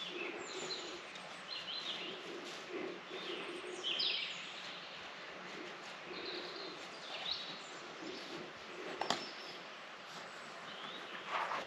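Small birds chirping and singing in short repeated phrases, over a steady hiss of running stream water. A single sharp click comes about nine seconds in.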